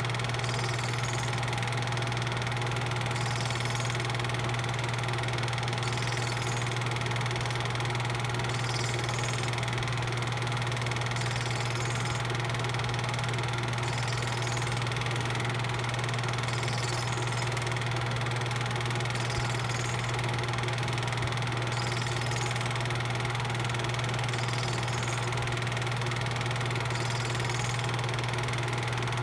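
A steady, unchanging low mechanical hum with an even hiss over it, like a small motor running.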